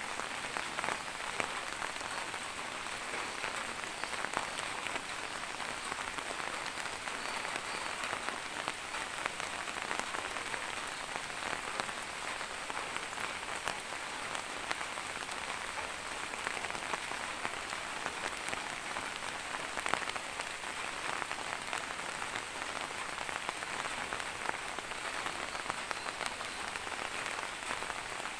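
Steady rain falling, a continuous hiss with many small drops pattering on surfaces.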